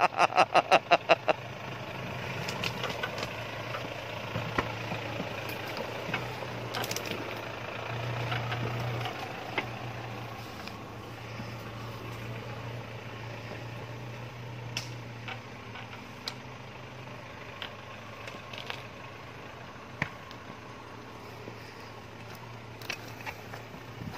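Off-road jeep's engine running at low revs as it crawls down through brush and away across a riverbed, a steady low drone that swells briefly and then fades as it moves off. Scattered sharp clicks over it, and a short run of quick rhythmic pulses right at the start.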